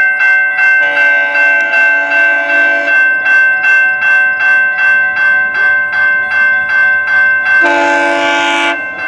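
Railroad crossing bell ringing in steady, even strokes, two to three a second, while an approaching GO Transit MP40 locomotive sounds its horn: one long blast about a second in and a shorter, louder blast near the end.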